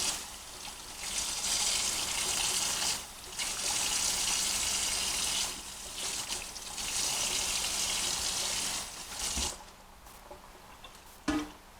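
Kitchen tap running cold water over lettuce leaves being rinsed, in three stretches of a few seconds each that stop and start, falling away about nine and a half seconds in. A short knock near the end.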